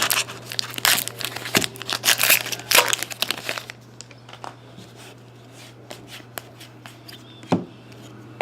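Foil wrapper of a hockey trading-card pack crinkling as it is torn open, then a run of light clicks and taps as the cards are handled. A steady low hum runs underneath.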